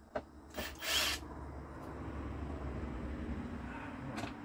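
Handling noise from fitting a fishfinder mount: a few clicks, a short loud scrape about a second in, then about three seconds of steady rubbing, ending with a click.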